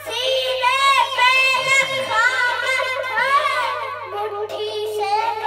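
A boy's voice singing a devotional recitation into a handheld karaoke microphone, in long melodic phrases with gliding, drawn-out notes, settling on a held lower note near the end.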